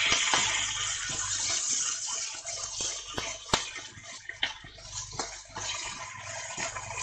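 Food sizzling in a cast-iron skillet while it is stirred with a wooden spatula. The hiss is strong at first and fades over the first few seconds, with scattered knocks and scrapes of the spatula against the pan.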